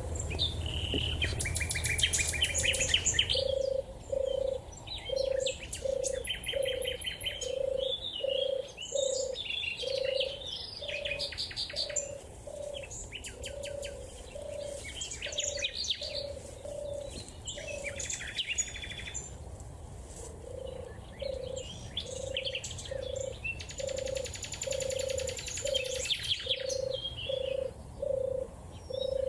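European turtle dove purring: a long run of low rolling notes, about one and a half a second, pausing briefly about two-thirds of the way through. Other small birds chirp and trill at a higher pitch over it.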